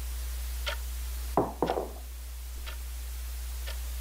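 Clock ticking once a second in a quiet room over a low steady hum. About a second and a half in, two brief louder sounds fall in pitch, a sudden disturbance in the stillness.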